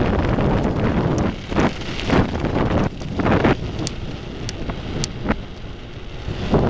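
Wind buffeting the microphone during a mountain-bike ride, a loud rushing rumble that swells and dips, with a few brief sharp knocks.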